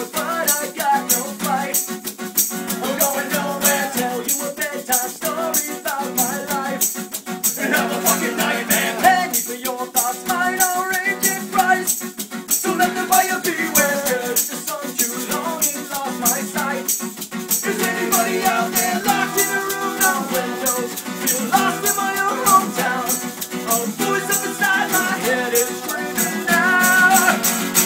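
Acoustic ska band playing an instrumental passage: strummed acoustic guitar under a shaker keeping a steady quick rhythm, with a melody line on top.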